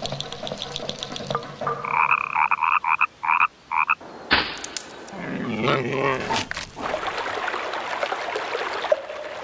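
A run of about five short animal calls, then a sudden loud noise with a wavering sound after it, then a shallow forest stream rushing over stones for the last few seconds.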